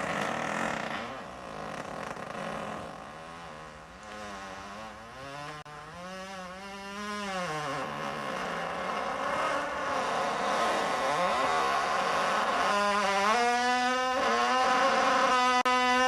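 Long, buzzing farts whose pitch wavers up and down: one drawn out from about three seconds in, and another, steadier one held through the last few seconds.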